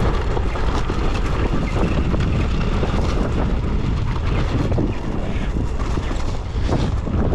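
Wind rushing over the microphone, mixed with the rumble and crunch of a Sur-Ron electric dirt bike's tyres rolling down a steep dirt and gravel slope.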